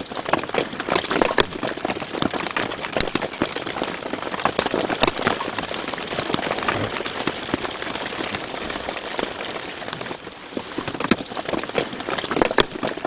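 Dense, irregular pattering and crackling on the fabric of a mountain tent, like precipitation drumming on the fly.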